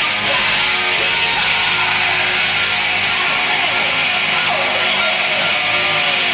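Live hard rock band playing loud, steady music with electric guitars and drums, a few notes gliding in pitch.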